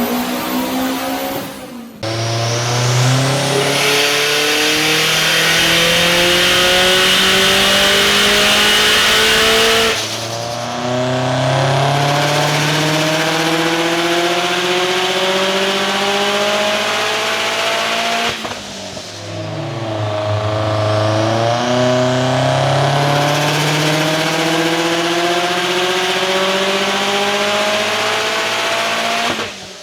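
Turbocharged Subaru STI flat-four engine at full throttle, its revs climbing steadily through three long pulls of about eight seconds each, with a strong rising turbo hiss; each pull cuts off sharply before the next begins.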